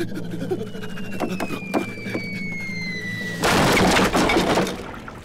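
Cartoon falling whistle: one long tone slowly dropping in pitch, cut off about three and a half seconds in by a loud crash lasting a little over a second, over background music.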